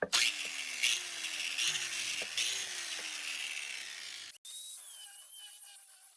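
Hand sawing or filing on a metal motor housing: back-and-forth strokes, about one every three-quarters of a second, each with a falling pitch. About four seconds in it cuts off abruptly to quieter, high wavering whistle-like tones.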